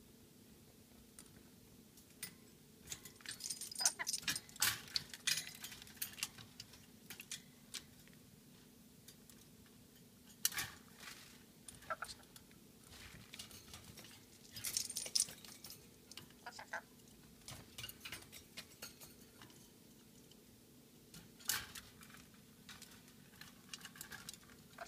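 Black-capped lory moving about its wire cage: scattered groups of sharp clicks and light metallic rattles, with quiet gaps between them.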